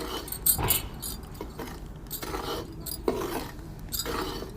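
Metal scraper spatula scraping and stirring semolina around a metal kadhai in repeated strokes, with light clinks of metal on metal. The semolina is being roasted and kept moving so it doesn't stick to the bottom.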